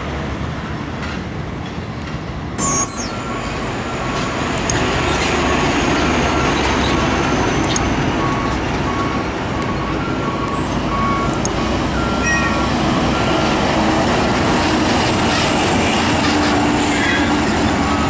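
Heavy diesel trucks driving along a road: steady engine and tyre noise, with a short electronic beep repeating over and over through most of it. There is a brief sharp knock about three seconds in.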